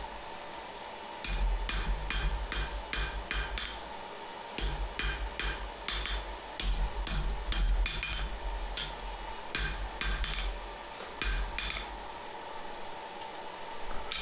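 Hand hammer striking steel flat bar on an anvil while forging blacksmith tongs, in runs of several ringing blows about two to three a second with short pauses between. The blows stop about twelve seconds in, leaving a faint steady hum.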